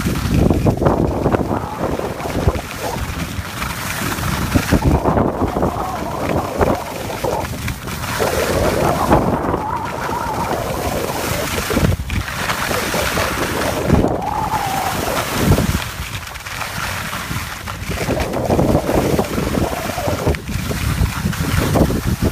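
Wind rushing over the microphone of a skier moving downhill, with the hiss and scrape of skis on packed snow that swells and fades with each turn.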